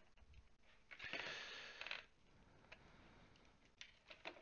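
Faint rustling of a cardboard fan box and its inserts being handled for about a second, then a few light clicks as a Corsair HD120 RGB fan is worked back into its packaging.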